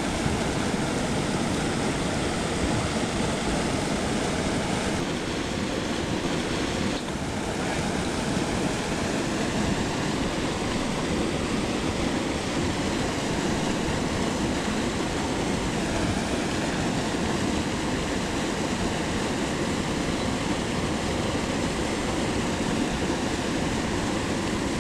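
Water pouring over a small concrete spillway and churning white in the pool below, a steady, even rush with no break.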